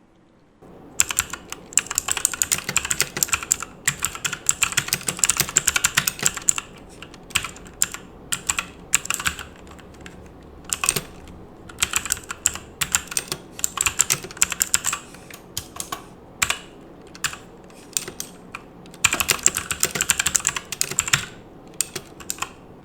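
Typing on a mechanical keyboard with Outemu Blue switches, recorded close up: fast runs of sharp, loud clicks broken by short pauses.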